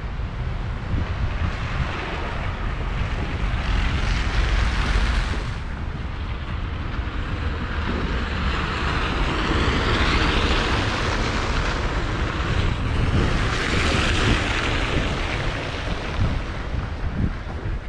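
Wind buffeting the microphone in a low, uneven rumble, with a rushing noise that swells and fades three times.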